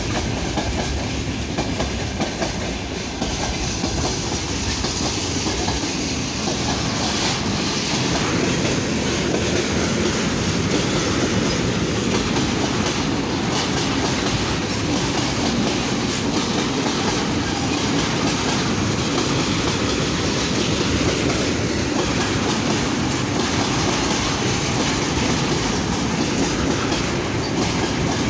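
Freight train wagons, open gondolas then tank cars, rolling past close by with a steady rumble and the clatter of wheels over rail joints.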